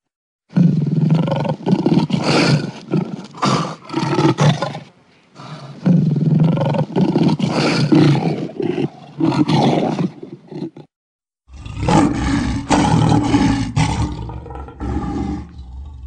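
Lion roaring in three long, pulsing bouts. There is a short dip between the first two, and the second cuts off suddenly into a brief silence before the third begins.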